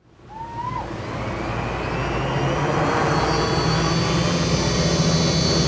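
Quadcopter's electric motors and propellers spinning up for take-off, then running as a steady whine and buzz. The sound grows louder over the first couple of seconds.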